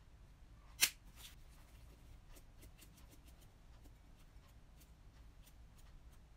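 Grated parmesan shaker being handled and shaken over a salad bowl: a sharp click about a second in, a softer one just after, then faint, irregular ticks and taps.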